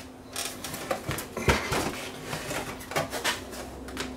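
Knocks and clicks of plastic and metal parts as the VCR chassis of a TV/VCR combination unit is worked loose and slid forward by hand, the loudest knock about a second and a half in, over a faint steady hum.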